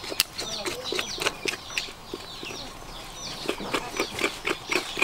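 A metal blade scraping hair and grime off a wet animal hide in short repeated strokes, quickening to about four or five a second near the end, with birds chirping high, falling calls over it.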